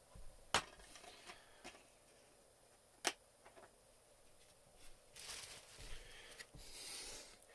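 DVD case being opened and the disc taken out: two sharp clicks, about half a second and three seconds in, then soft rustling of handling near the end.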